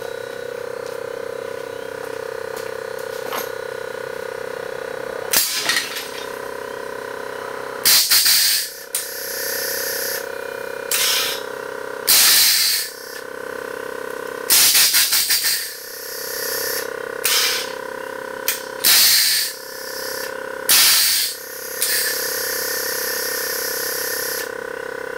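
Air-ride suspension being cycled: the solenoid valves let out repeated sudden blasts of hissing air, some long, some a quick stutter of short taps, as the airbags are filled and dumped. A steady electric hum runs underneath.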